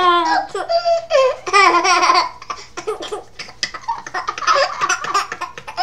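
An 11-month-old baby laughing, with a woman laughing along: a few longer laughs, then a string of short quick ones.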